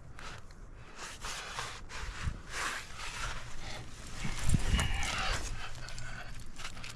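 A rock climber breathing hard in quick, noisy breaths while climbing, louder from about halfway through.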